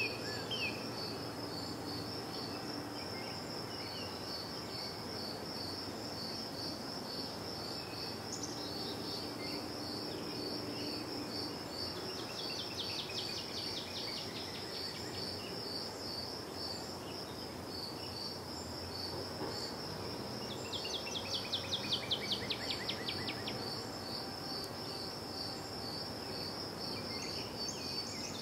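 Crickets chirping steadily in an even, high-pitched pulse, about three chirps a second, over a low, even background hum. A rapid trilling call comes twice, about twelve seconds in and again, louder, about twenty-one seconds in.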